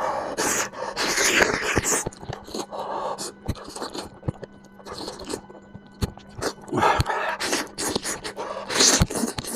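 Close-up eating sounds of a person working through spicy lamb head: irregular wet, noisy mouth bursts and many sharp clicks, busiest near the start and again near the end.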